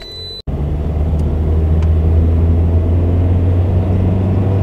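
Steady low drone of a car being driven, heard from inside the cabin: engine and road noise. It starts abruptly about half a second in, after a short quieter stretch.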